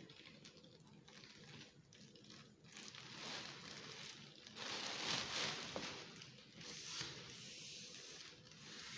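Mylar foil balloon crinkling and rustling in the hands while it is pumped up through its valve with a plastic hand pump. The rustling starts about three seconds in, is loudest around the middle and dies down near the end.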